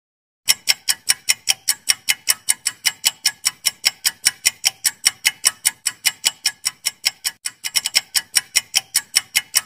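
Clock-ticking sound effect for a quiz countdown timer, running as the time to answer counts down. The sharp ticks come about five a second, start about half a second in, and break off briefly near the end before going on slightly faster.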